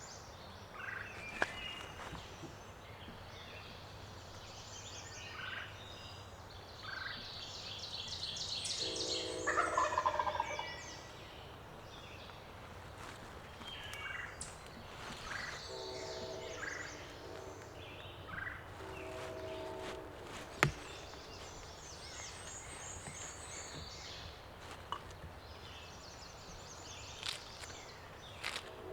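Wild turkey gobbling three times: once about a third of the way in and twice more just past the middle. Songbirds chirp in high, short phrases throughout. A single sharp click about two-thirds of the way through is the loudest sound.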